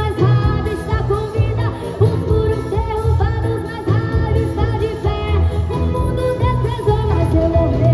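Live church band playing a gospel song with a steady beat, a melody line running over the bass and drums.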